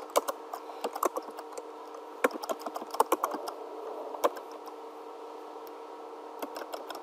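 Typing on a computer keyboard: irregular key clicks, busiest in the first four seconds, a short lull, then a few more keystrokes near the end. A faint steady hum runs underneath.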